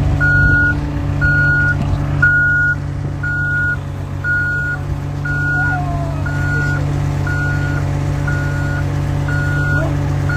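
A vehicle's reversing alarm beeping at one steady pitch, about one beep every three-quarters of a second, over a steady low engine hum.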